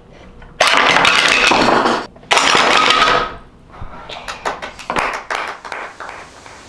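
Two loud rushing bursts of noise, about a second each, then a quick run of clicks and clatters of small wooden pieces knocking onto a tabletop, dying away.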